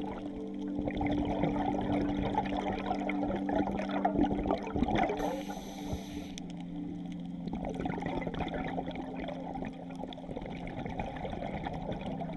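Underwater sound on a scuba dive: crackling and gurgling water noise, with a louder hiss of bubbles around the middle, over a steady low hum.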